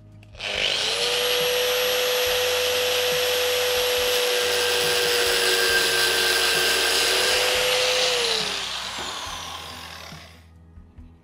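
Handheld angle grinder spinning up and cutting into a metal BMW differential output flange clamped in a vise: a steady high whine over harsh grinding noise as the cutting disc shortens the flange by 4 mm. About eight seconds in, the grinder is switched off and winds down with a falling whine.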